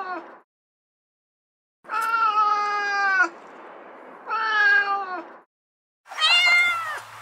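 Recorded domestic cat meows played from a phone sound app. The tail of one meow is followed by two drawn-out meows, each about a second or more long and dipping in pitch at the end. Near the end a different recording starts with a brighter meow that rises and falls in pitch.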